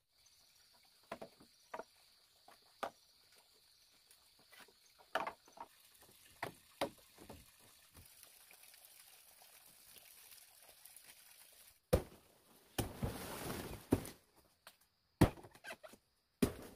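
Scattered knocks and clicks of hand work on a bamboo frame, over a faint steady high hum. Later come a sharp knock, about a second of rustling, and another sharp knock.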